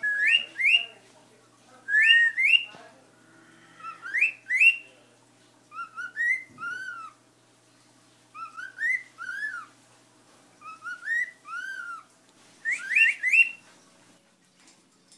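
Cockatiel whistling a repeated tune in short phrases about every two seconds, each of two or three sliding notes. The first and last phrases rise sharply, and the middle ones arch up and down.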